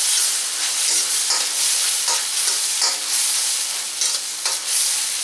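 Diced tomatoes, serrano chile strips, onion and garlic sizzling in oil in a stainless steel pan, stirred with a metal spoon that scrapes against the pan about once a second.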